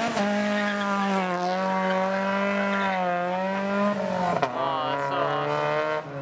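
A car engine revving hard and held at high revs for several seconds. The revs drop about four seconds in with a sharp pop, climb again, then fall away near the end.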